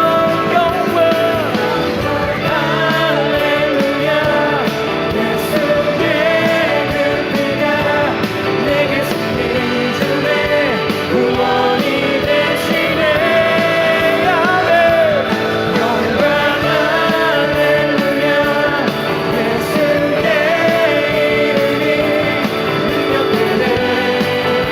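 Contemporary worship music: a full band playing with a voice singing over it.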